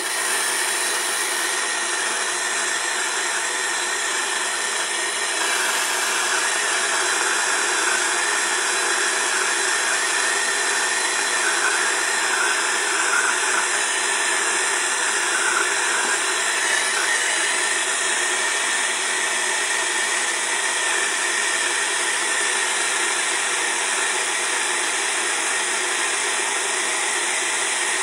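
Handheld gas torch with a brass burner on a yellow gas cylinder, burning with a steady hiss. Its flame is heating a soldered copper pipe joint on a refrigerator compressor to unsolder it.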